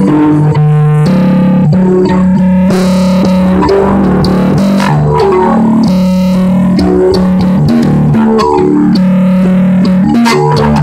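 Bass guitar jamming: held low notes that move to a new pitch every second or so, with higher plucked notes above them. It is loud and rough, picked up by a smartphone microphone.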